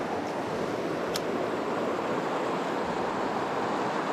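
River current rushing steadily over a rocky riffle: an even hiss of moving water, with a single light click about a second in.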